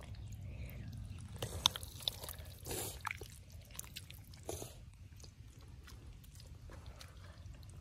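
Wet squelching and splashing of hands and a small glass tank in mud and shallow water, with a few sharp clicks and short splashes between about one and a half and five seconds in, over a low steady rumble.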